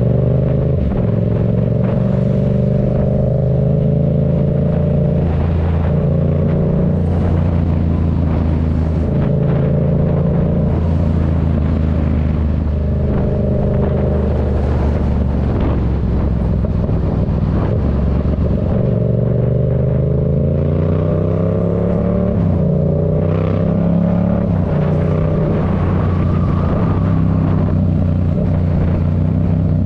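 Yamaha MT-07's 689 cc parallel-twin engine, breathing through a Black Widow aftermarket exhaust, being ridden: the engine note climbs and falls repeatedly as the bike accelerates and eases off.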